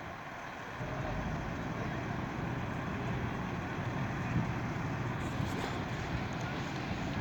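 Steady low engine rumble, a little louder from about a second in.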